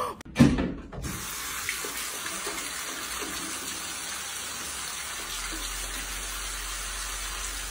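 Bidet tap running, a steady stream of water splashing into the ceramic bowl. A brief loud thump comes just before the water starts.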